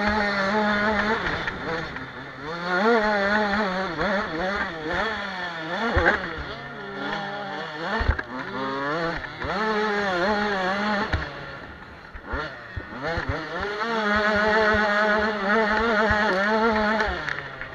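Motocross bike's engine under hard riding, its pitch climbing and dropping again and again with the throttle. It eases off about two-thirds of the way through, then holds a high, steady pitch near the end. A couple of sharp knocks come about six and eight seconds in.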